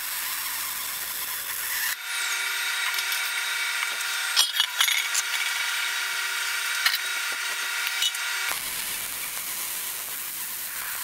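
Wire-feed welder arc crackling and sizzling while welding steel square-tube joints, in separate runs that change abruptly about two seconds in and again near the end.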